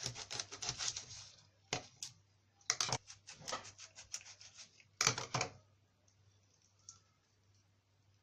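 Kitchen knife cutting through a mackerel's head and backbone: a quick run of crackly, crunching cuts, then several separate sharp cuts and knocks, dying away after about six seconds.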